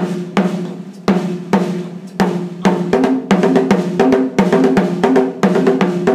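Two skin-headed drums standing in for a pair of congas, played in a conga-style steel band engine-room pattern. It is a steady, fast run of strokes on the lower-pitched drum, and from about three seconds in it alternates with the higher-pitched drum.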